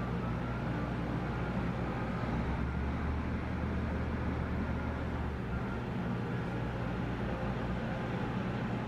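Large passenger ferry running under way, heard on board: a steady low engine hum with a deeper rumble, under an even wash of noise.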